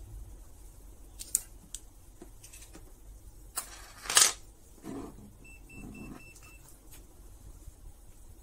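Plastic battery box full of 18650 cells handled and turned on a desk: a few light clicks, then a loud scrape about four seconds in and a dull knock. Right after, five short high electronic beeps in quick succession.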